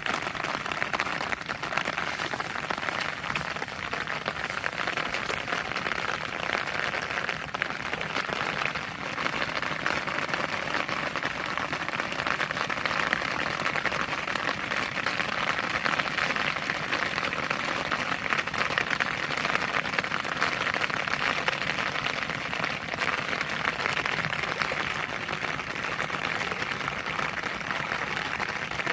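Heavy rain falling steadily, a dense even patter.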